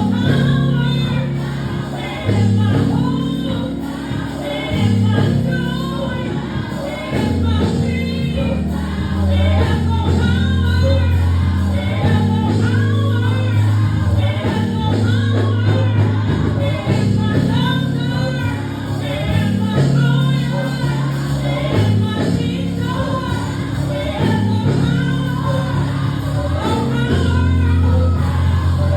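Gospel choir singing live with band accompaniment, sustained bass and chord notes under many voices.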